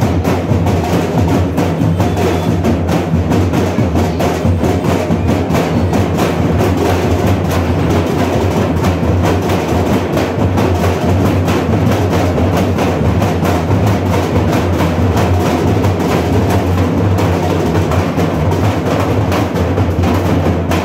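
Dhol drums beaten in a dense, continuous rhythm, with no break.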